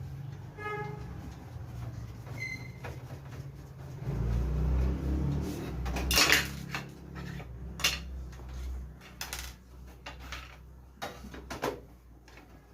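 Metal computer parts being handled during PC disassembly: irregular clinks and knocks with a heavier rumble of handling in the middle, the loudest knock about six seconds in.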